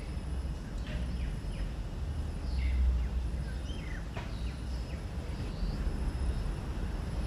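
Outdoor ambience: a steady low rumble, swelling briefly about three seconds in, with several short chirping bird calls over it.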